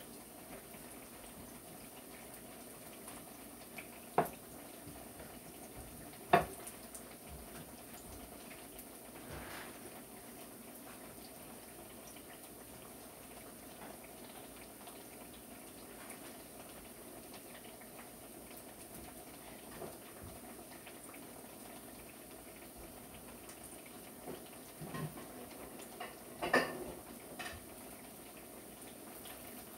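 Dishes, pots and utensils clinking in a kitchen: two sharp clinks about four and six seconds in, and a short run of clattering near the end, over a steady faint hiss.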